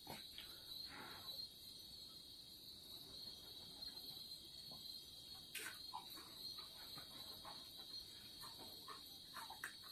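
Faint, steady trilling of crickets, with a few faint scattered clicks and ticks, the clearest about five and a half seconds in.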